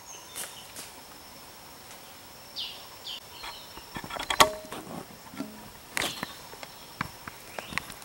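A steady high insect whine with scattered sharp clicks and knocks over it; the loudest knock comes about four and a half seconds in. Two short falling calls sound about three seconds in.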